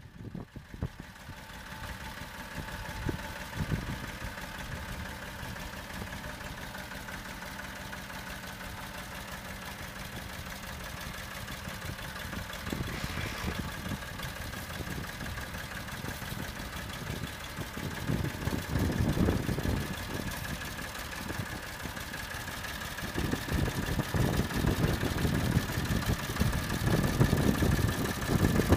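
Massey Ferguson 231 tractor's three-cylinder diesel engine idling steadily, growing louder near the end.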